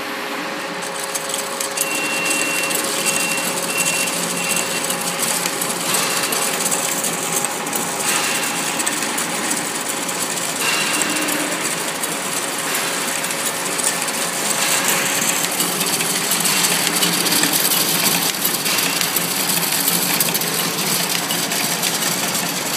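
Coffee-stirrer packing machine with a roller printer running: a steady mechanical clatter of many rapid ticks, with a thin high tone that comes and goes in the first half.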